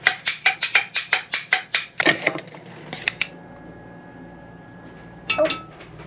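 Kitchenware clinking: a quick, even run of about a dozen sharp knocks of utensils on dishes, about five a second, then a couple more and a short cluster of clinks near the end.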